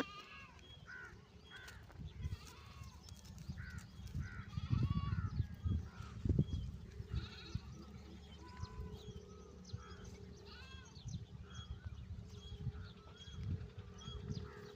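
Goats bleating in many short calls, with low rumbling knocks loudest a third of the way in.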